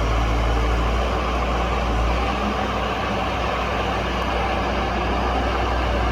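JCB backhoe loader's diesel engine running steadily, with a strong low hum.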